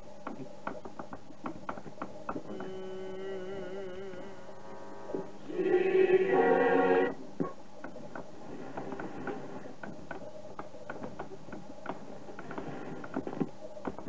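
Blaupunkt Derby 7.652.450 portable transistor radio being tuned across the dial, heard through its own speaker. Clicks and crackle between stations, a steady whistle that starts to waver a few seconds in, and a station's audio coming in loudly for about a second and a half near the middle before the crackle returns.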